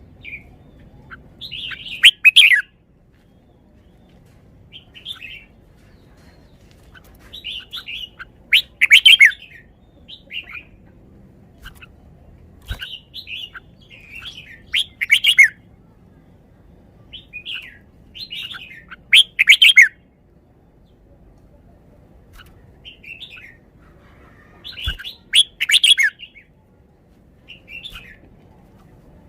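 Red-whiskered bulbul singing: a short, loud phrase of quick notes about every five to six seconds, with softer chirps in between.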